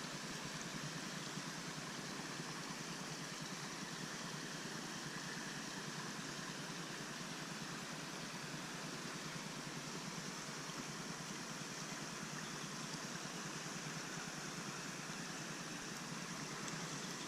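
Steady rushing of flowing creek water, an even hiss with no breaks or changes.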